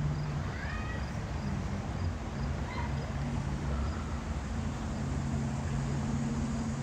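A motor running with a steady low hum, with a few faint bird chirps over it.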